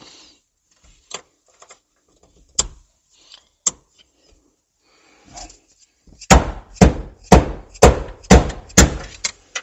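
A hammer strikes a screwdriver set against the fuel pump's locking ring, knocking the ring round to lock it down on the fuel tank. There are a few light taps first, then six sharp, loud blows at about two a second in the second half, each ringing briefly.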